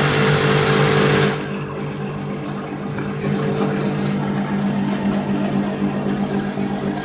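Homemade lathe running, its electric motor giving a steady hum. A loud hissing noise lies over it for about the first second, then drops away, leaving the hum.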